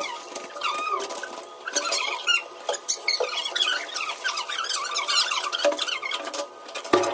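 Plastic snack packets rustling and crinkling as they are handled and opened, under rapid high-pitched squeaky chatter.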